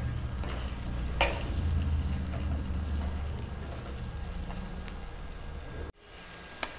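Flat steel spatula stirring and scraping thick grated bottle-gourd halwa in a steel kadhai, with a light sizzle over a steady low hum. This is the final sauté, with the milk and sugar syrup almost fully cooked off. There is one sharp tap about a second in, and the sound cuts off briefly near the end.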